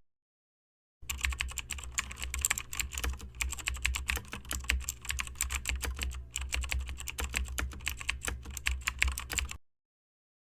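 Sony CDP-V750 CD player's disc mechanism making rapid, irregular clicking and ticking over a low steady hum as it starts up and reads the disc. It starts about a second in and cuts off suddenly near the end.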